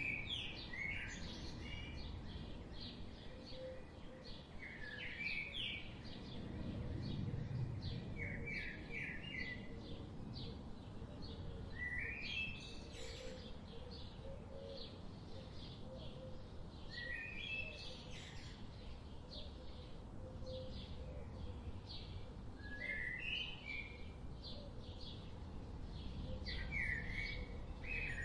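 Songbirds singing: one bird repeats a short phrase of quick notes every four to five seconds while others chirp rapidly, over a steady low rumble.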